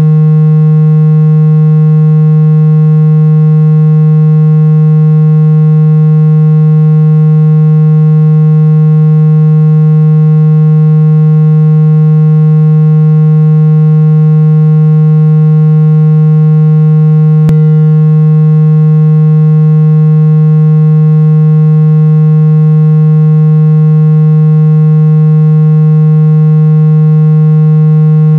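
Synthesized water-eject speaker-cleaning tone: a loud, steady low buzzing tone held at one pitch, played to vibrate a phone speaker and shake trapped water out of it. One brief click about two-thirds of the way through.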